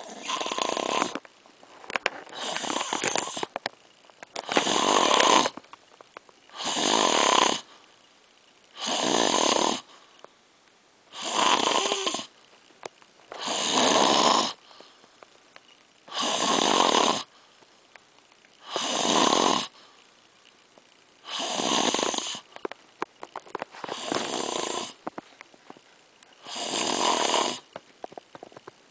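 Loud, regular snoring: about a dozen rasping snores, each lasting around a second, one every two to two and a half seconds, with quiet breaths between them.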